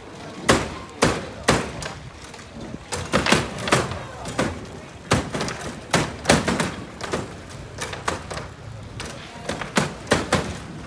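Foosball game in play: the ball and the rod-mounted players knocking against each other and the table walls, making an irregular run of sharp clacks and thuds, sometimes several in quick succession.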